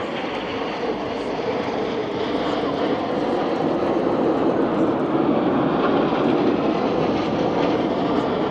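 Formation of Red Arrows BAE Hawk jets flying past, a loud jet roar that grows louder over the first half and then holds steady.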